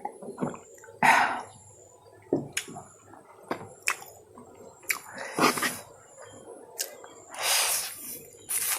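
Close-miked eating of chow mein: wet chewing and mouth clicks, with three louder noisy slurps about a second in, midway and near the end.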